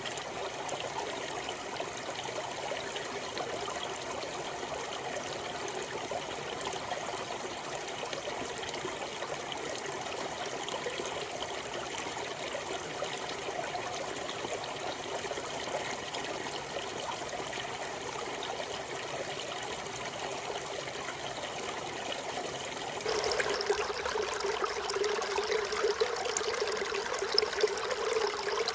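Mountain stream in a forest, water running steadily over rocks. About 23 seconds in, the sound switches abruptly to a louder, closer rush of water.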